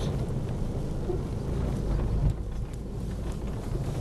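Car in first gear crawling over a rocky dirt road, heard from inside the cabin: a low engine drone and a rumble of tyres and suspension on loose stones, with one jolt a little after two seconds in.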